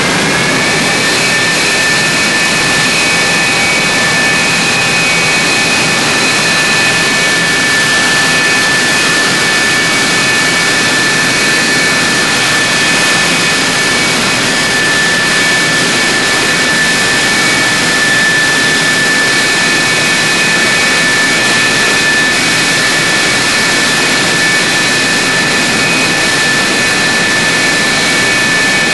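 Lockheed F-104 Starfighter's General Electric J79 turbojet during start-up: its whine rises and levels off about a second in, then the engine runs steadily with a loud, high whine over a rushing roar.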